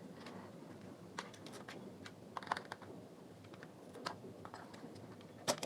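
Scattered light clicks and taps of small speaker parts being handled while a driver is taken out of a portable Bluetooth speaker, with the sharpest click near the end.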